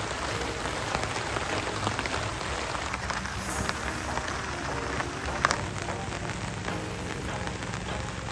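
Steady rain falling, with many individual drops ticking; one drop lands louder about five seconds in.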